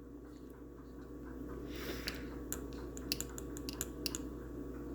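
Light clicks and taps of small wires, parts and tools being handled, scattered irregularly over a steady low hum, with a short swish about two seconds in.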